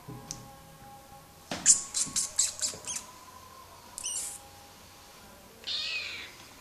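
A quick run of about seven sharp clicks and knocks, the loudest moment, as Bengal kittens scramble on the track of a cat exercise wheel. It is followed by a short squeak and, near the end, a brief high-pitched kitten mew.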